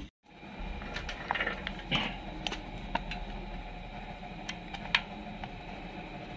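Scattered light clicks and taps of a screwdriver working a screw on the recoil starter housing of a grass cutter engine, over a steady low hum.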